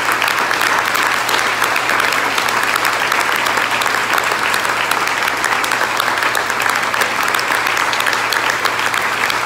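Large crowd applauding, with many hands clapping in sustained applause that holds steady throughout.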